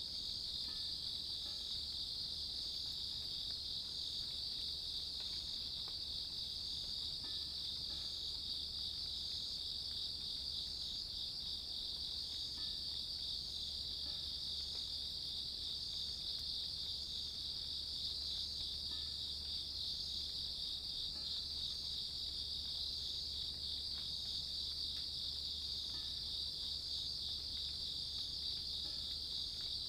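Grass insects such as crickets calling in a continuous, steady high trill.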